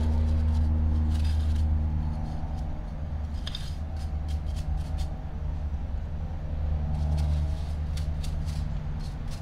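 A cheap paintbrush scratching and flicking sand out of a Penn 704Z spinning reel's housing in short irregular strokes, over a steady low hum.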